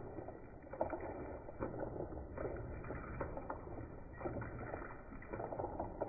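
Slowed-down water splashing from super slow-motion playback: a deep, muffled, irregular rushing with swells every second or so.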